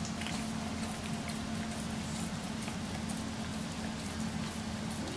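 English bulldogs breathing noisily, a steady low drone with scattered small clicks and mouth smacks.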